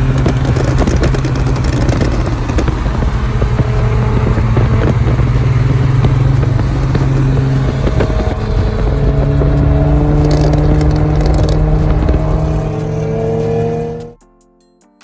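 A car engine and exhaust running loudly at a steady pitch. The pitch steps up about halfway through and then rises slowly as the revs climb, before cutting off abruptly near the end.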